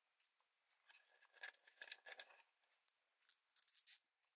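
Faint small metallic clicks and scrapes of 15x3mm ring magnets being handled and slid onto an M4 bolt, a cluster about a second and a half in and a few sharper clicks near the end.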